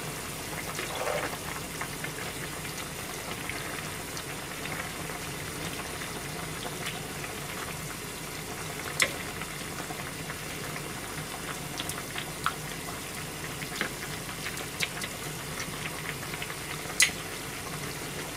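Pans of broth simmering on a gas stove: a kiri-konbu nishime and a miso soup, with a steady low bubbling hiss. A few sharp clicks of a utensil against a pan come through it.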